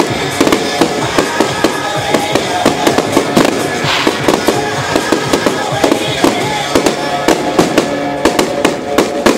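Aerial firework shells bursting in a rapid run of sharp bangs and crackles, several a second and thickest near the end, with music playing along.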